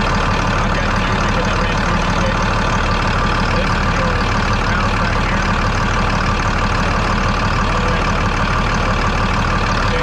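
Allis-Chalmers 7045 tractor's diesel engine idling steadily, heard close up.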